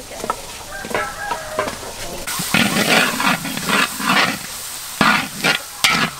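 Metal ladle scraping and stirring spice paste and shallots frying in a large wok, with sizzling. The scrapes grow louder after about two seconds and come roughly every half second.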